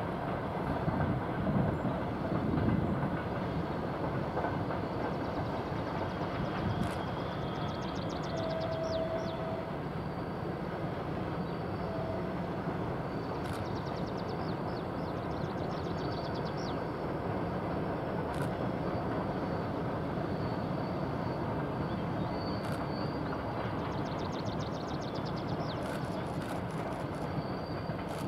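Heavy freight train on a mountain grade, hauled and pushed by ВЛ11М electric locomotives: a steady running noise of the wagons rolling on the rails, with a faint clickety-clack.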